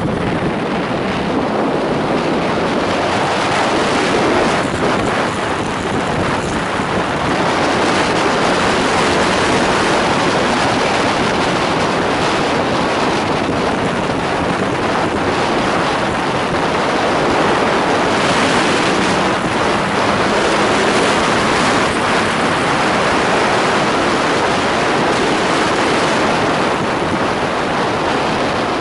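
Steady wind rush over the microphone of a camera on a moving motorcycle, with the bike's engine and road noise underneath.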